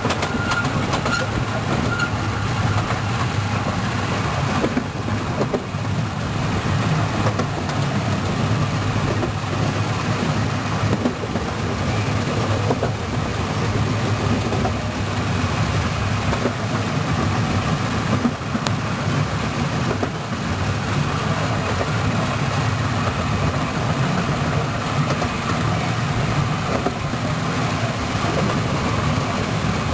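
Wulai's small two-seat tourist trolley train running on its rails: a steady rumble of wheels and running gear that holds level throughout.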